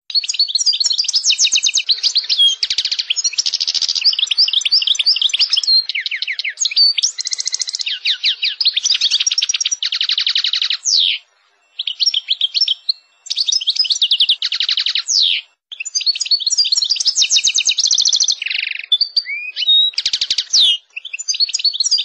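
European goldfinch singing in the rolling, sharp-noted 'ngerol tembak' style: a fast, almost unbroken run of high twittering trills and sharp chirps, broken by a few brief pauses.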